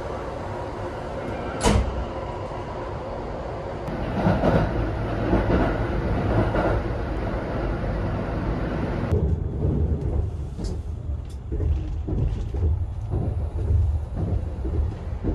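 Kintetsu 80000 series "Hinotori" limited express running, heard from inside the carriage: a steady rumble with one sharp click about two seconds in. Heavier rumbling and clatter set in about four seconds in, and a lower, duller rumble follows from about nine seconds.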